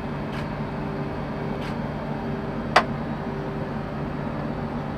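Steady hum of the International Space Station's cabin ventilation and life-support fans: an even rushing noise with a low drone and a higher steady tone. A single sharp click sounds just past halfway through.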